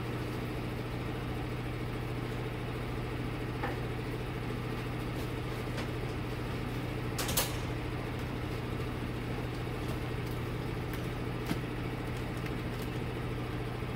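Steady low machinery hum of a workshop, with a few faint clicks and one short noise about seven seconds in.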